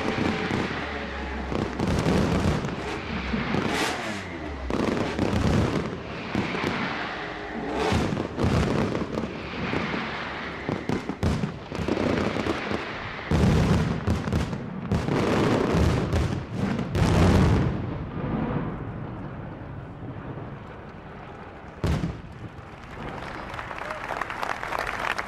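Fireworks and firecrackers going off in a rapid, irregular barrage of bangs as a noisy tribute, loudest about two-thirds of the way in. The bangs then thin out, with a single sharp bang near the end.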